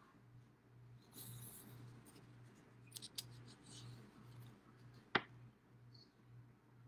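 Faint rustling of paper sheets being handled, with a few small clicks and one sharp tap a little after five seconds, over a low steady hum.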